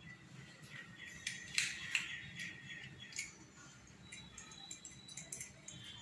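Faint clicks and light scraping of small metal parts being handled: a screwdriver working on a metal tap adapter for a washing machine's water inlet.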